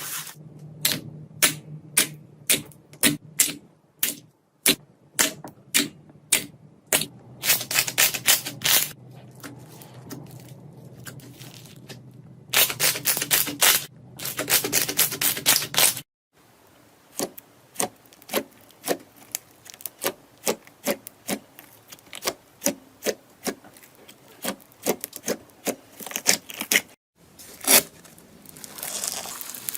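Slime being pressed and poked by hands, giving sharp popping clicks as air pockets burst, with faster runs of crackling in between. The sound breaks off abruptly twice as new clips begin.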